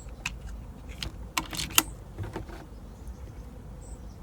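A few light clicks and taps from handling an air rifle on its rest while aiming, the sharpest about two seconds in, over a low steady hum.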